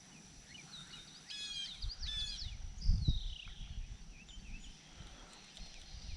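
Wild birds calling and chirping, with a rapid rattling call about a second and a half in and a falling whistle about three seconds in. A few low thumps and rumbles in the middle, the loudest about three seconds in.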